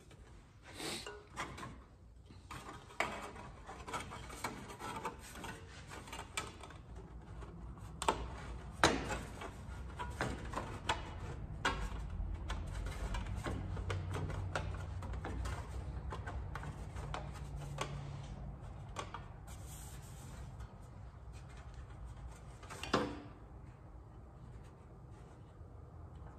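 Sheet-metal gauge panel being handled, bent by hand and test-fitted: scattered clicks, taps and rubbing of thin metal, with a few sharper knocks.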